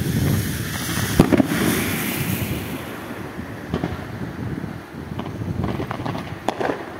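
Aerial fireworks: scattered bangs and pops of shells bursting, the sharpest a little over a second in, over a continuous low rumble.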